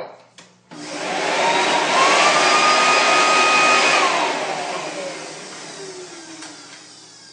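Electric blower motor, like a hair dryer or vacuum, switched on: a rushing of air with a whine that rises and holds steady for about two seconds, then falls away as the motor is switched off and winds down.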